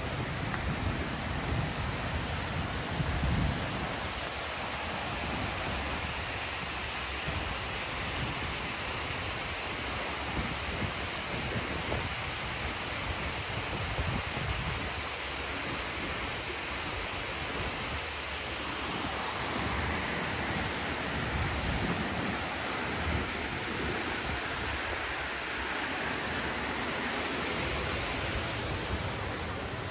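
Steady rushing of a river flowing through the town, an even hiss-like noise with some irregular low rumbling mixed in.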